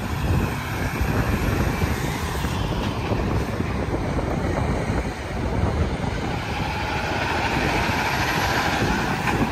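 Interstate highway traffic going by steadily: the tyre and engine noise of trucks and cars passing.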